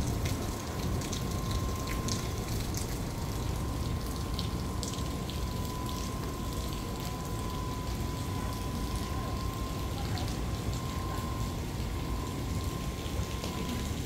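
Water sloshing and splashing with small scattered drips, over a steady low rumble. A faint steady high tone sits underneath.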